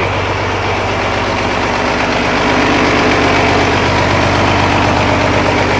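Diesel engine of an 1800-horsepower pulling tractor idling steadily, run to warm up and circulate its oil ahead of an oil change. It gets slightly louder about two and a half seconds in.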